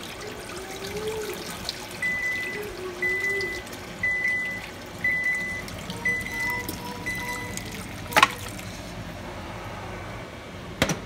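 Meat broth poured from a pressure cooker into a stainless steel pot, trickling and splashing. Over it an electronic beep sounds six times, about once a second, and a sharp knock comes about eight seconds in, with another shortly before the end.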